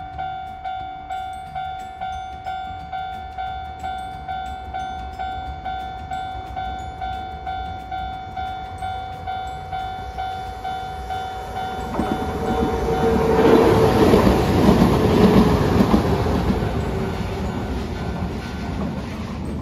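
Japanese level-crossing warning bell dinging steadily about twice a second as the crossing signals flash. From about twelve seconds in, a Hiroden tram runs past close by, its wheels rumbling on the rails with a held tone, loudest a couple of seconds later and then fading.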